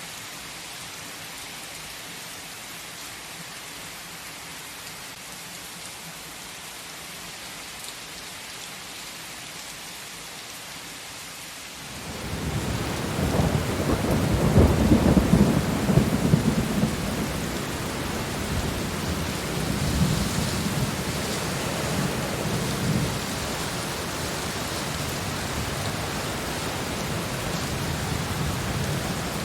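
Steady rain falling in an even hiss. About twelve seconds in, a long roll of thunder rises over it, loudest for a few seconds, then rumbling on more softly under the rain.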